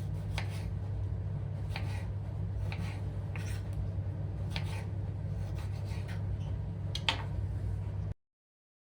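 Several short scraping strokes, irregularly spaced, over a steady low hum. The sound cuts off abruptly about eight seconds in.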